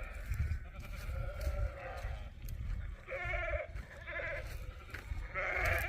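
Recorded sheep bleats played through a Bluetooth speaker: a wavering bleat about three seconds in, a shorter one soon after, and a longer one near the end.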